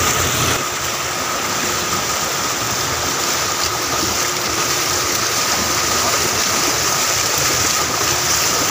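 Steady rush of flowing floodwater, an even unbroken noise.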